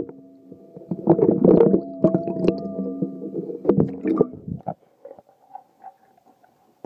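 An iPhone in a Lifeproof case being handled: rubbing and several sharp knocks against the microphone for about four seconds, over faint steady low tones. It turns much quieter about five seconds in.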